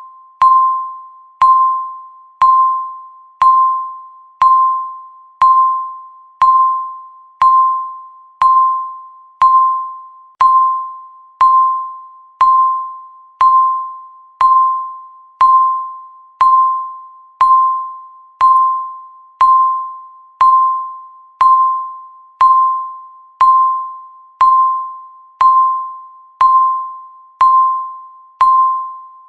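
Electronic countdown timer beeping once every second: a single high chime-like tone that starts sharply and fades out before the next beep, marking each second left on the countdown.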